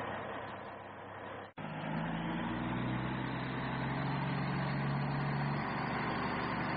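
Truck engine sound running steadily, laid over a toy tipper truck. It breaks off briefly about a second and a half in, then continues as a steady low engine drone.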